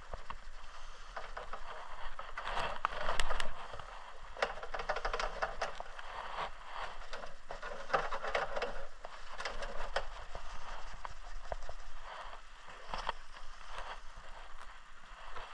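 Paper towel rubbing back and forth over the plastic body shell of a Traxxas Rustler RC car, wiping the top clean: a continuous scratchy rustle with small crinkling clicks, loudest about three seconds in.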